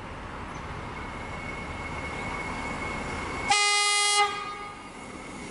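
X'Trapolis electric suburban train approaching at low speed with a steady high whine. About three and a half seconds in it sounds one horn blast lasting under a second.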